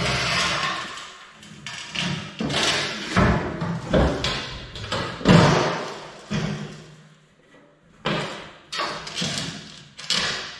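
Hollow metal thumps and clanks as metal truck step boxes are lifted, turned and set down on a concrete floor, a dozen or so knocks at uneven intervals.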